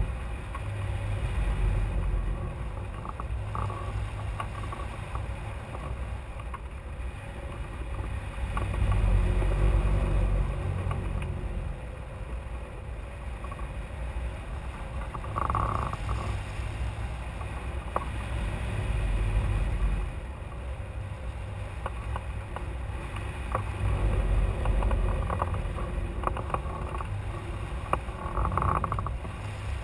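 Airflow buffeting the microphone of a camera mounted on a hang glider in flight: a low rushing rumble that swells and eases every few seconds, with occasional faint ticks and rattles.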